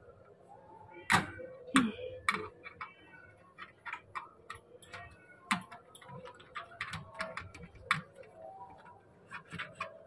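A thin wire clicking and scraping against an aluminium window frame and its latch as it is poked through the gap to work the catch open: irregular sharp ticks and taps, the loudest two a little over a second in.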